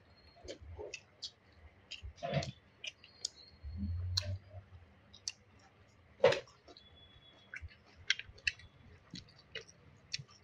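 Scattered small clicks and taps of people eating a meal, from dishes, utensils and chewing. There is a brief low rumble about four seconds in and a sharper knock just after six seconds.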